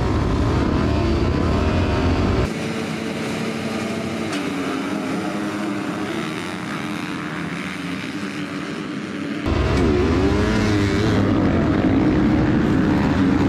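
Several dirt bike engines running and revving, their pitch rising and falling. The sound drops abruptly about two and a half seconds in and comes back just as abruptly near the ten-second mark.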